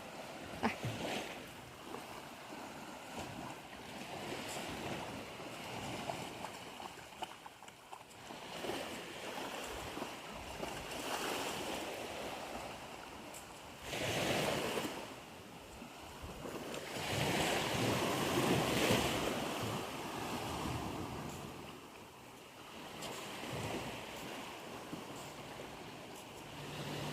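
Sea waves washing onto a beach, swelling louder about halfway through and again a few seconds later. A few brief knocks near the start.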